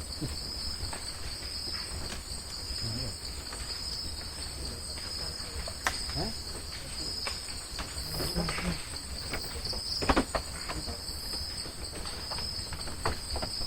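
Steady chorus of insects: a continuous high-pitched trill on two pitches, with scattered faint clicks and knocks.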